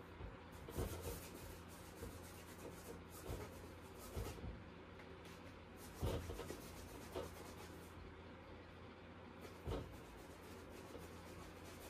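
Paint being stroked and scrubbed onto a stretched canvas by hand: short rubbing strokes every second or two, over a faint steady low hum.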